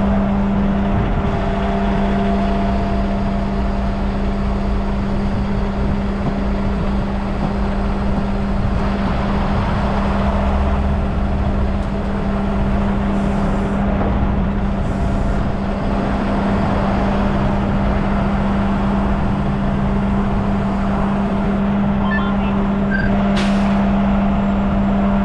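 Heavy rotator tow truck (Miller Industries Vulcan 950) running its engine and hydraulic winch steadily under load as it pulls a stuck semi-truck free. The drone holds a constant pitch throughout.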